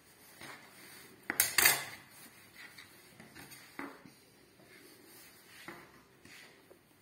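A metal kitchen knife clattering against a wooden pastry board: a quick cluster of sharp strikes about a second and a half in, then a few lighter taps and scrapes as the blade cuts and drags orecchiette pieces from the dough rope.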